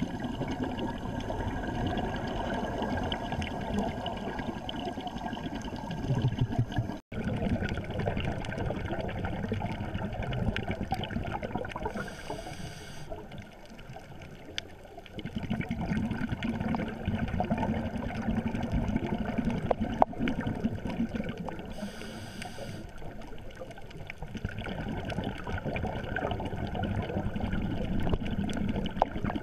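Scuba breathing heard underwater through the camera housing: a short hiss of a regulator inhalation, then several seconds of gurgling, rumbling exhaust bubbles, in cycles about ten seconds apart. The sound cuts out for an instant about seven seconds in.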